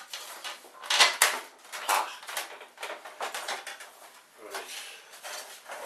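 Plastic and metal printer parts clattering and clicking as they are worked loose inside a stripped printer case: two sharp knocks about a second in, then irregular lighter clicks and rattles.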